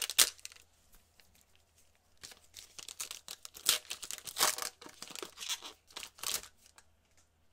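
Foil wrapper of a basketball card pack being torn open and crinkled by gloved hands: a sharp rip at the start, then after a short pause a few seconds of crinkling and tearing that dies away near the end.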